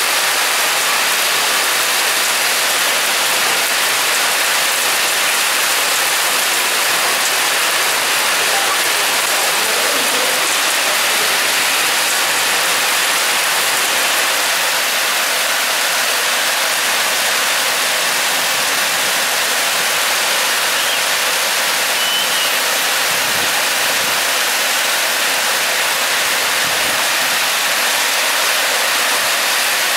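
Heavy hailstorm: hailstones and rain pelting the ground and surrounding surfaces in a dense, steady hiss.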